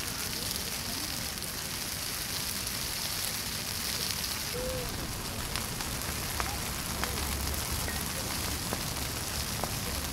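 Large bonfire of piled brush and sticks burning with a steady hiss and crackle, with scattered sharp pops through the second half.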